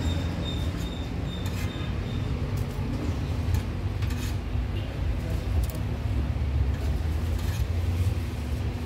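Steady low mechanical rumble with a constant hum. A faint high beeping, about two or three beeps a second, stops about two seconds in.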